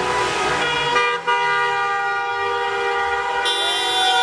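Several car horns sounding together in long, overlapping held blasts: celebratory honking from a street full of cars.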